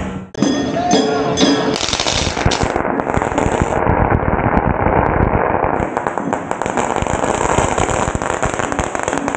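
A string of firecrackers going off in a fast, continuous crackle of sharp pops, starting about two seconds in.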